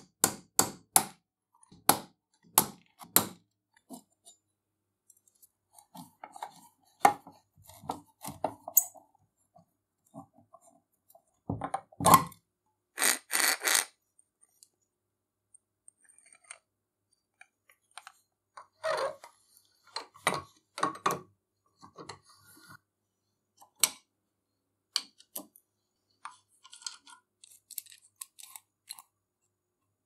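Metal parts of an old coffee grinder being taken apart by hand, with no power tool running. A quick run of sharp metallic taps comes first, then scattered clicks, a loud knock about twelve seconds in followed by a second or so of scraping, and small handling rattles later.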